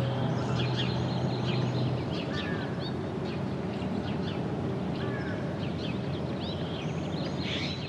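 Many songbirds chirping, with quick short calls and small whistled glides, over a steady background hiss. A low steady hum under them fades out about two seconds in.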